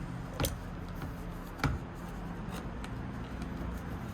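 Clicks and light taps of hands working on the iMac's internals while freeing the optical drive: two sharper clicks, about half a second and a second and a half in, and a few fainter ticks over a low steady hum.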